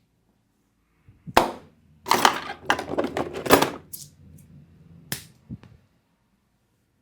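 Sharp, loud slaps of a barber's hands striking during a head and back massage: one slap, a quick run of strikes for about two seconds, then two more.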